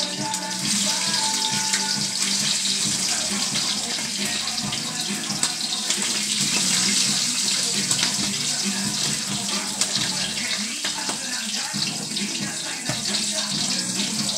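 Smoked fish (tinapa) frying in hot oil in a wok, a steady high sizzle with small crackles that thickens about half a second in as fish go into the pan.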